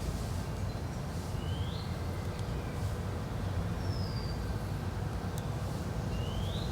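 Steady low rumble of background noise, with a few short, high rising chirps about 1.7 s in and near the end, a higher falling chirp about 4 s in, and a few faint clicks.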